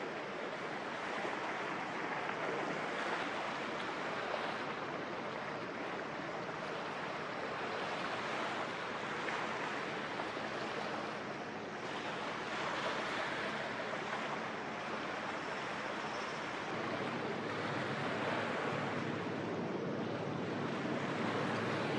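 Harbour ambience: a steady rushing of water and wind, swelling and easing every few seconds. A faint low hum joins about three-quarters of the way through.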